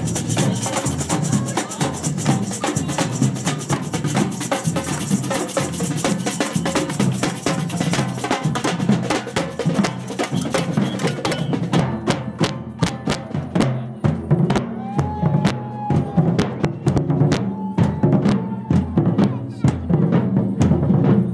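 Procession drum band playing a steady marching rhythm, the beats thick and dense at first and standing out as sharper, separate strikes in the second half.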